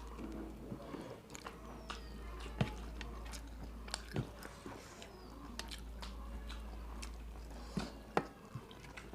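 Close-up eating: biting and chewing with scattered short mouth clicks and crunches, over a low steady hum.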